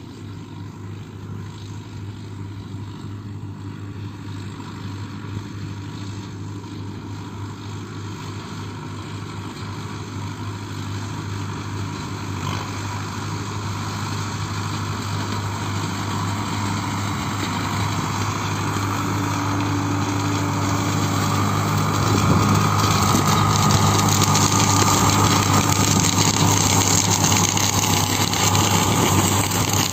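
Preet tractor's diesel engine running steadily under load in the field, growing louder as it draws nearer, with a rushing hiss of loose straw thrown up by the implement rising in the second half.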